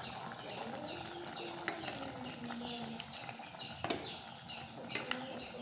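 A bird calling over and over, a short falling chirp about twice a second, with a few sharp clicks of a spoon against a steel pot as a simmering curry is salted and stirred.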